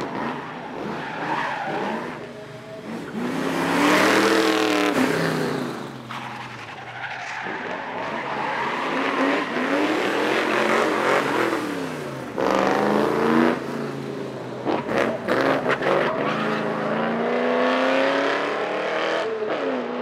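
Ford XY Falcon race car's engine revving hard, its pitch climbing and dropping back several times through gear changes and braking, with tyres squealing in the corners.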